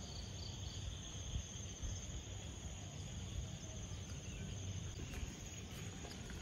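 Insects chirring in a steady, continuous high-pitched drone, over a low rumble.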